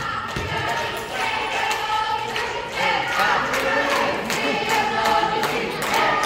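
A group of voices singing together, several held pitches overlapping, with sharp knocks scattered through it.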